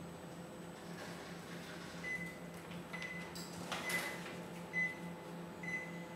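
Microwave oven sounding short, high beeps at one pitch, about one a second, over a low steady hum. A few clicks and clatters of handling come about four seconds in.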